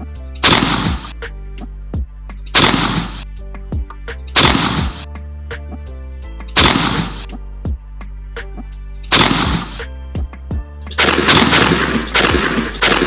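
Shotgun shots at flying ducks, each a sharp blast with a short fading tail: about one every two seconds, then a quicker string of shots near the end. Background music with a steady beat plays under them.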